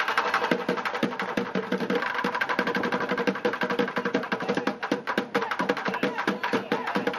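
Bucket drumming: a group of drummers striking upturned white plastic buckets with drumsticks in a fast, dense rhythm of sharp strikes.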